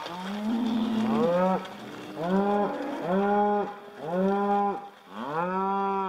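Cattle mooing: about five drawn-out moos in quick succession, each lasting around a second and rising in pitch as it begins.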